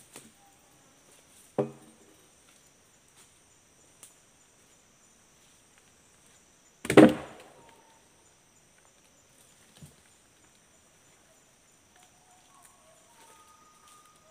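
A sharp wooden knock about seven seconds in, with a couple of fainter knocks before and after it, over a steady high-pitched insect drone.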